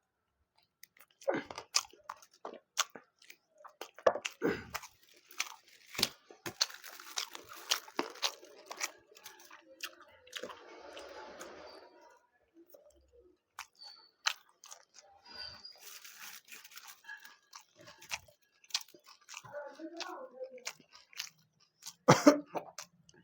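Close-miked eating sounds: a person chewing and crunching tandoori chicken and laccha paratha, with irregular wet clicks and smacks of the mouth and a louder crunch near the end.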